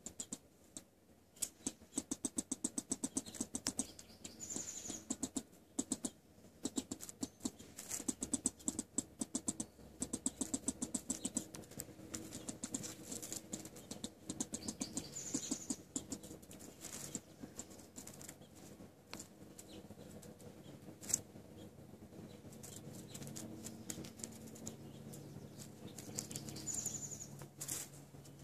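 Pocket gopher at its burrow mouth making rapid runs of soft clicks and scratches in the dirt, coming in bouts of a few seconds. Three brief high chirps come in between.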